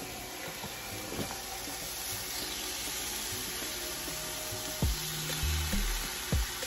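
Ground turkey sizzling in a hot skillet: a steady frying hiss, with a few dull knocks in the last two seconds.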